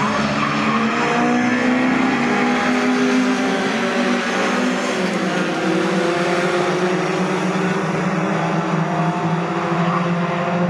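Engines of a pack of racing pickup trucks running hard as they pass, several engine notes overlapping and gliding up and down in pitch.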